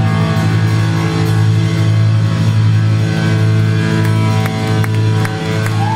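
Live rock band playing loud and distorted, with a low chord held as a steady drone and a few sharp hits over it.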